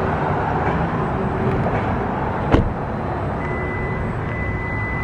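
Kia K5 GT-Line idling with a steady hum, with a sharp click about two and a half seconds in and a thin steady high-pitched tone coming in past the middle.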